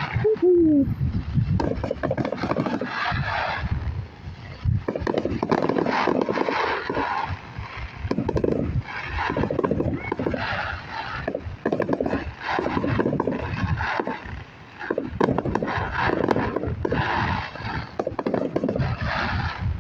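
Fireworks going off: a dense, unbroken run of pops and crackles.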